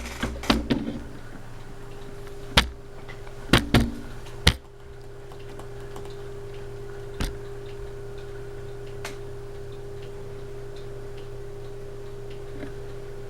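Westinghouse Apollo Elite ceiling fan running on low with a steady motor hum. Several sharp clicks come in the first few seconds and a couple of fainter ones later.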